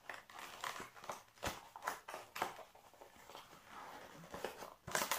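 White cardboard box being handled and its flaps pressed back into shape: a string of light knocks, taps and rustles, the loudest about five seconds in.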